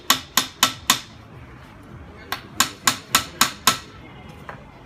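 Small hammer tapping on metal held in a bench vise, fitting a Beretta shotgun ejector: four quick taps, a pause of about a second and a half, then six more taps at about four a second, each with a short metallic ring.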